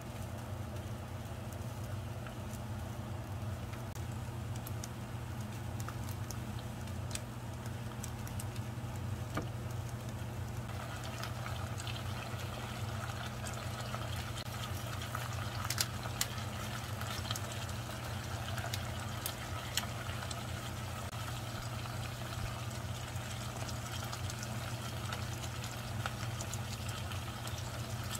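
Garlic slices frying gently in olive oil in a pan: a soft sizzle with scattered pops over a steady low hum. About eleven seconds in, the sizzling grows louder and busier as raw shrimp go into the hot oil.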